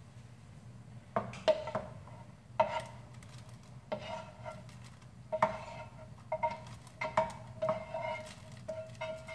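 A utensil clinking and scraping against metal cookware as browned ground beef is scooped from the pan into the soup pot. The repeated sharp clinks ring with a clear tone and start about a second in.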